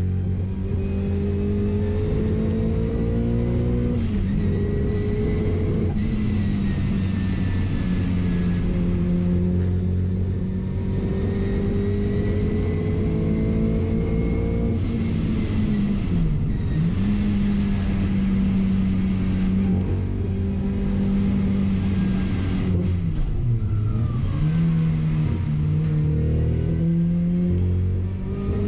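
Car engine running hard at high revs, its pitch climbing slowly over long stretches, with two brief sharp dips in pitch, about 16 and 23 seconds in.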